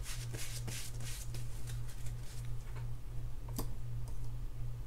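Crumpled paper towel rustling in quick strokes for the first couple of seconds as hands are wiped, then a single small click about three and a half seconds in. A steady low hum runs underneath.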